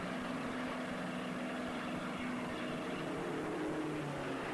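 Sprint car engines running at racing speed, several at once in a steady drone, one engine's pitch dropping about four seconds in.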